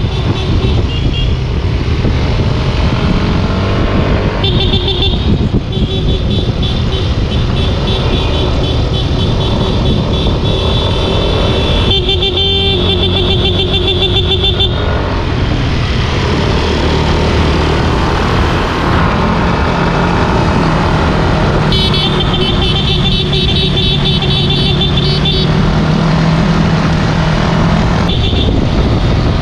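Motorcycle running along the road with steady engine and wind noise, and a vehicle horn sounding in several stretches of rapid repeated beeps, each a few seconds long.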